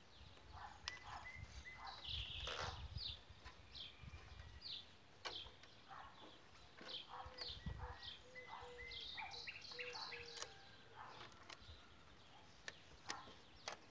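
Faint small-bird chirping and calling, many short notes and quick falling sweeps repeated throughout, with a few sharp clicks and knocks from a wooden-framed wire-mesh panel being handled.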